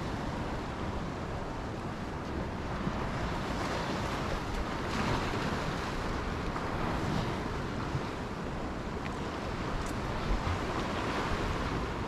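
Surf on a sandy beach: waves breaking and washing up in slow swells, with wind rumbling on the microphone.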